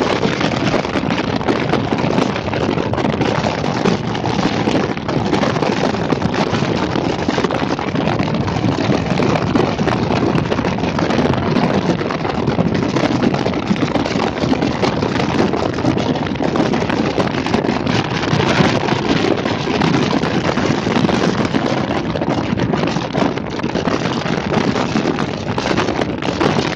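Steady wind noise buffeting the microphone, an even rush with no clear engine note.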